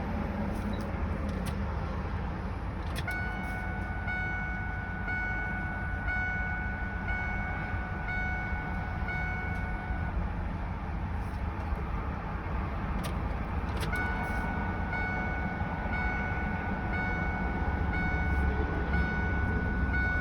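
Ford 7.3 L Power Stroke V8 turbodiesel idling steadily after a cold start. A warning chime from the cab sounds about once a second for several seconds, stops, and starts again about 14 seconds in.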